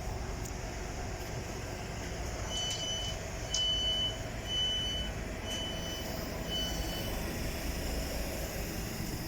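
Train door-closing warning beeps: five short, high, even beeps about one a second, over the steady low rumble of a train standing at the platform.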